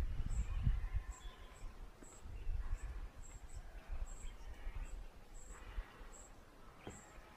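Riverside bush ambience: a high, short chirp repeating about twice a second, from an insect or small bird, over faint bird calls. A low rumbling noise is strongest in the first couple of seconds and fades out by about six seconds in.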